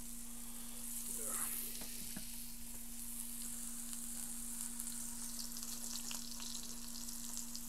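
Olive oil sizzling in a hot cast-iron skillet as a seasoned pork loin sears, a steady frying hiss that swells about a second in as more oil is drizzled into the pan, with denser spitting crackles near the end. A steady low hum runs underneath.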